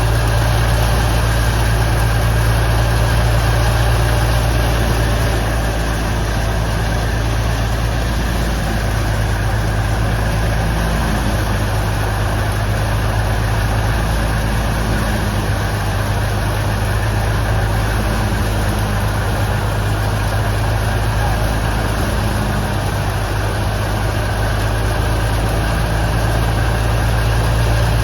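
Wheat thresher running steadily, a constant low engine hum under a dense rushing noise from the machine.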